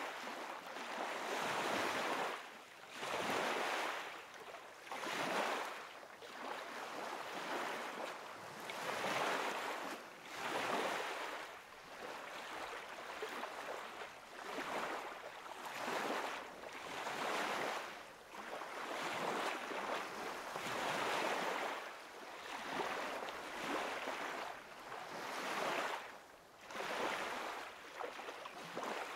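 Gusty wind rushing, swelling and fading every second or two, with no motor tone to be heard.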